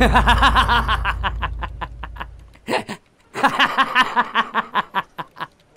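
A man laughing heartily in two long bouts of quick, rhythmic 'ha-ha' pulses, with a short break about halfway; the second bout trails off.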